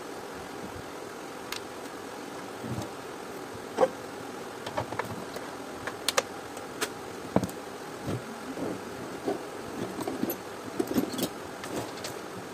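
Scattered clicks and knocks of hard plastic parts as the rear cover of a Panasonic NI-U550 steam iron is handled, fitted back onto the body and screwed down with a screwdriver, over a steady background hiss. The sharpest knock comes a little under 4 s in, and a run of small ticks follows near the end.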